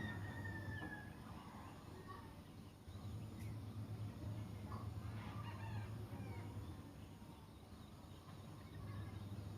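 Faint chickens calling in the background, with one drawn-out call at the start and a few short calls about halfway through, over a steady low hum.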